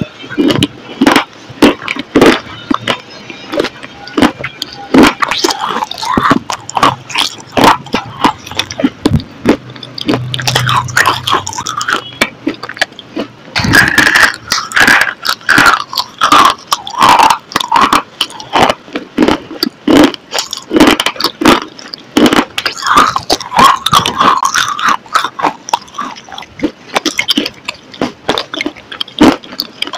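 Loud crunchy bites and chewing of a crumbly white stick, a rapid irregular run of sharp crackles and crunches with short pauses between mouthfuls.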